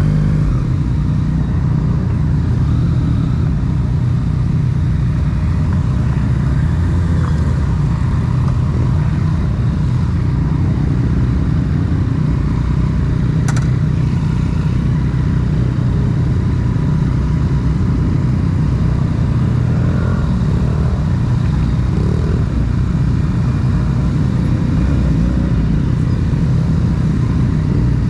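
Motorcycle engine idling steadily close by, a constant low rumble with no revving. A single brief click about halfway through.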